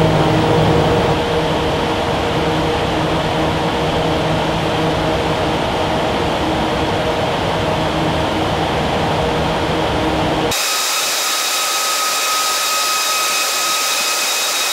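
Wall of Wind hurricane simulator's bank of twelve 700-horsepower fans driving wind at about 95 to 105 mph: a loud, steady rush of wind with a low hum under it. About ten seconds in, the sound switches abruptly to a high whine over hiss with the low end gone.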